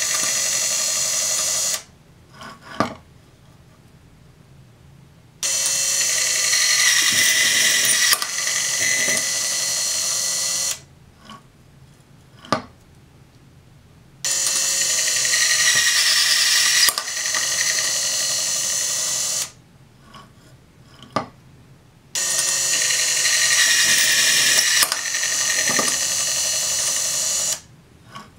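KATO KFS20 brushless electric driver installing tangless thread inserts: its motor whirs in runs of about five seconds, one run per insert, and each run shifts in tone partway through. Short, sharp clicks fall in the quiet pauses between runs.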